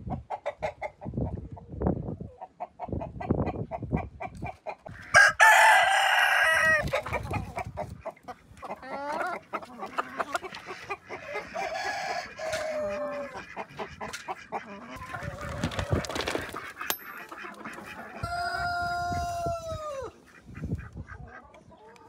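A flock of chickens clucking, with a rooster crowing loudly about five seconds in and another long call near the end.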